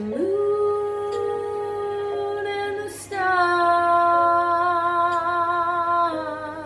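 A woman singing a slow ballad in two long held notes: the first slides up into pitch at the start, and the second, a little lower and louder, begins about three seconds in and is held with vibrato.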